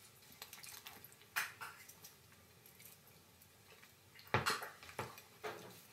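Metal fork scraping and clicking against a black plastic ready-meal tray: a few scattered light clicks, with a louder cluster about four and a half seconds in.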